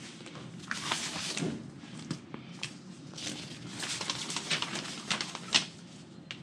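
Paper instruction sheets rustling and crinkling as they are picked up and leafed through, in irregular bursts with a few sharp ticks, the loudest a little before the end.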